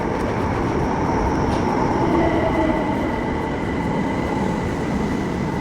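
Passenger train running, a steady rumble of wheels and motors with a thin high whine that comes in about two seconds in.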